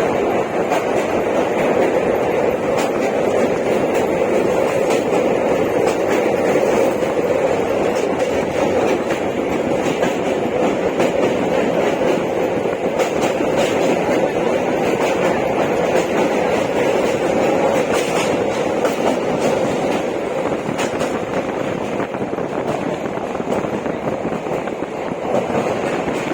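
Train running steadily, a continuous rumble of wheels on track with faint clicks, becoming a little quieter near the end.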